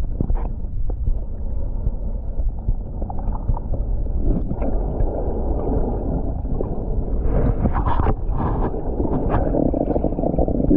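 Underwater sound from a submerged camera: a steady low rumble and swish of water moving around the microphone, with short knocks and rustles from hands handling bait close by, busiest about seven to nine seconds in.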